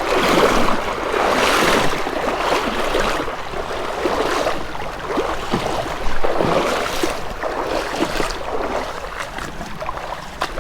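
Legs wading through shallow creek water, a splashing slosh with each stride, roughly one a second.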